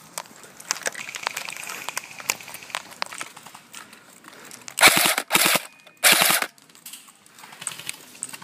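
Airsoft gun firing two short full-auto bursts close by, about five and six seconds in, amid scattered sharp clicks and pops.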